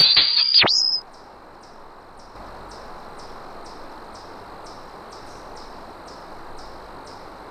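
Music with a high rising whine cuts off suddenly about a second in. Crickets are left chirping in an even rhythm, about two chirps a second.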